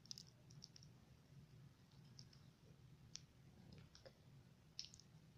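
Homemade glue slime being squished in a fist, making faint, scattered small clicks and pops.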